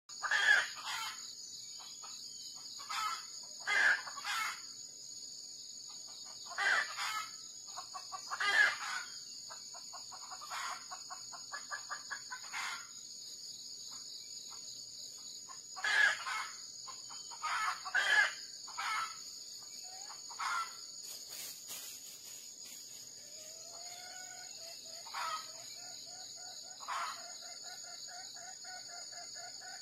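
Red junglefowl roosters crowing and clucking in short bouts every few seconds, with a quick run of clucks about ten seconds in. A wild rooster is coming in to a decoy rooster, clucking as it approaches. A steady high hiss runs underneath.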